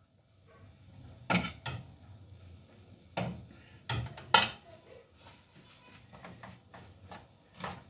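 Metal utensils knocking and scraping against frying pans and a metal plate as food is dished out: a handful of sharp clinks, the loudest about four and a half seconds in.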